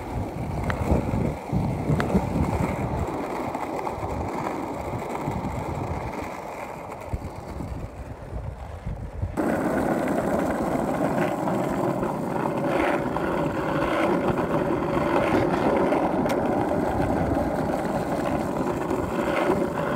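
Cruiser skateboard's wheels rolling over asphalt, a rough uneven rumble. About nine seconds in it cuts to a steady rushing outdoor noise.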